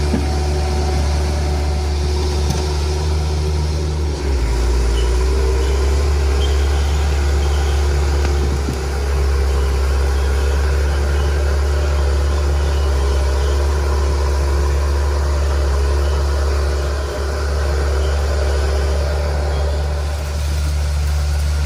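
Heavy logging machine's engine running steadily, a loud low drone that shifts in note about four seconds in.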